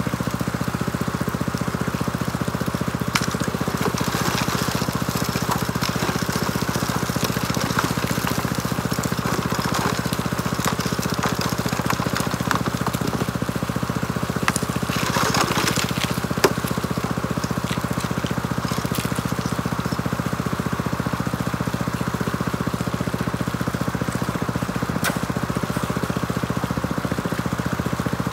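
The small gasoline engine of a high banker's water pump running steadily, with water flowing through the sluice. A few sharp clicks sound over it, and there is a short rattle about fifteen seconds in.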